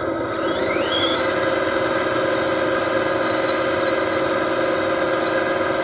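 RC dump truck's electric drive running, a steady hum with a high whine that climbs in pitch in the first second and then holds steady, as the loaded truck is bogged in mud.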